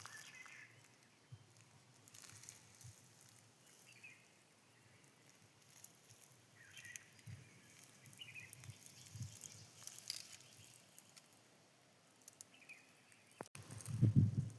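Quiet outdoor ambience: irregular rustling and crackling with a few faint short chirps, and a low thump near the end.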